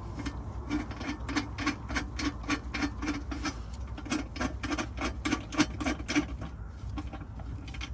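Hand ratchet clicking rapidly and evenly, about four or five clicks a second, as a nut is run down lightly by hand onto a transmission cross member stud; the clicking stops a little after six seconds in.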